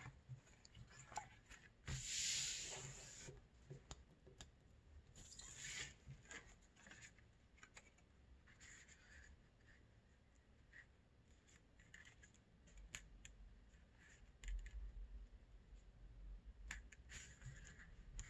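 Hands rubbing and smoothing a crocodile leather hide on a metal workbench and sliding a paper pattern over it: two short rustling scrapes in the first six seconds, then faint taps and rubbing.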